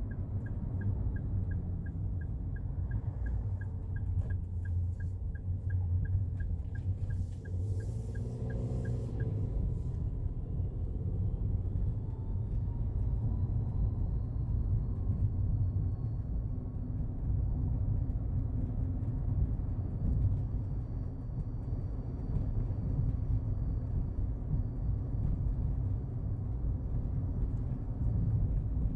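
Daihatsu Hijet Cargo running with a steady low rumble. A light, regular ticking at about three a second runs through the first third and then stops, and a faint whine slowly rises later on.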